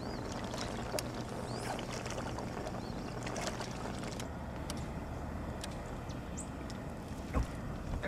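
A fishing boat's motor humming steadily, with water and wind noise around it. A single knock comes about seven seconds in.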